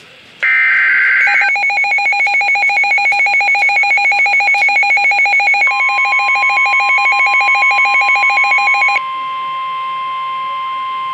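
EAS/SAME digital header burst from NOAA Weather Radio, a short raspy electronic screech, the last of the three headers. A rapidly pulsing two-pitch electronic alert beep follows and runs until about 9 s in. About 5.7 s in, the steady 1050 Hz Weather Radio warning alarm tone starts and keeps sounding alone after the pulsing stops.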